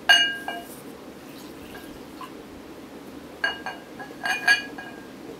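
Glass measuring jug clinking against a glass mixing bowl as water is poured in: one ringing clink just after the start, then a quick run of four or five clinks about three and a half to four and a half seconds in.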